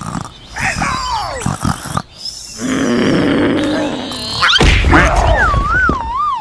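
Edited-in sound effects: two falling cries, a long rough growl, then a rising whoop that turns into a wavering whistle-like tone near the end.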